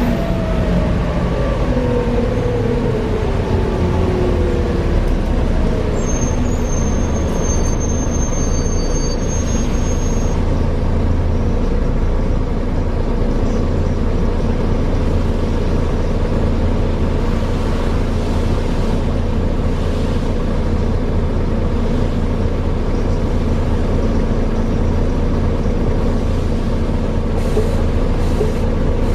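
Volvo B7TL double-decker bus's diesel driveline running: a steady low drone, with a whine that falls in pitch over the first few seconds as the bus slows, and a brief high squeal about a third of the way in. The bus has knocking and ticking noises that the uploader puts down to a bad differential.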